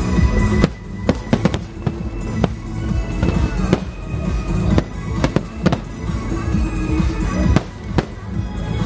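Aerial fireworks shells bursting in an irregular series of about a dozen sharp bangs, with music playing underneath.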